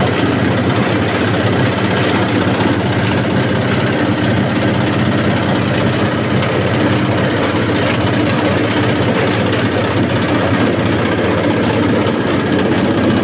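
Single-cylinder diesel engine running steadily under load, driving a corn-husk chopper while dry husks are fed in and chopped.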